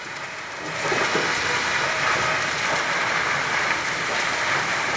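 Steady rushing, crackling noise of a large fuel fire: a tanker truck burning on a bridge, with burning fuel pouring down from the deck. It grows louder about a second in and then holds even.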